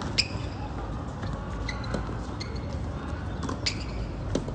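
Tennis rally on a hard court: sharp pops of the ball off the racket and off the court, a few in all, with short high squeaks of rubber-soled tennis shoes on the court surface in between.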